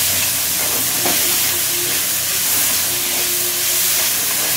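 Onions, capsicum and green chillies sizzling in hot oil in an aluminium kadai while being stirred with a steel spatula: a steady, loud hiss.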